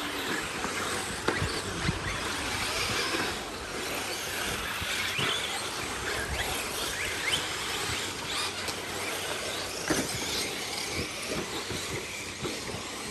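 Radio-controlled off-road race cars running on a dirt track. Their motors give short high whines that rise and fall as they speed up and slow down, over the hiss of tyres on dirt, with a few sharp knocks.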